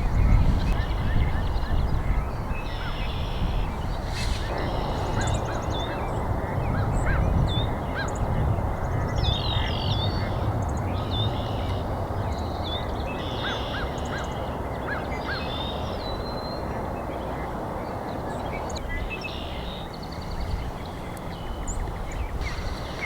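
A spring chorus of wildlife calls: short, repeated pulsed trills and quick bird chirps overlapping throughout, over a steady low rumble.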